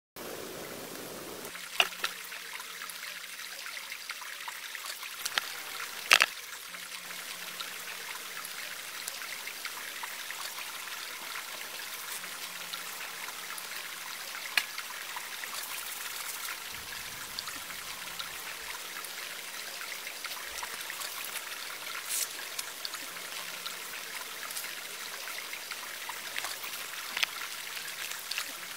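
Water trickling steadily, with a few sharp knocks or clicks, the loudest about two and six seconds in.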